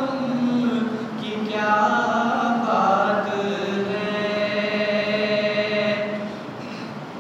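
A man's solo voice reciting an Urdu naat without accompaniment, in long held, wavering notes. It gets quieter in the last second.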